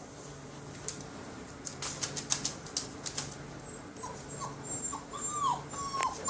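Puppy whimpering: a series of short, high, falling whines that start about halfway through and come more often and louder toward the end. Before them, a quick run of clicks.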